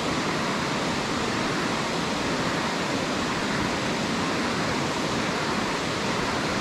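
Steady rushing of river water pouring over a low rock ledge.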